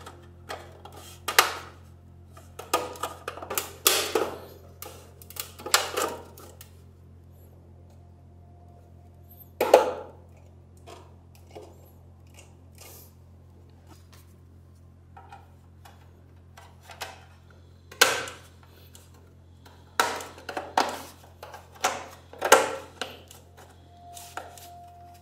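Sharp clicks, taps and knocks of a vintage Malhar radio's metal and plastic case parts being pressed and snapped into place, in scattered clusters with a few louder knocks. A faint steady low hum runs underneath.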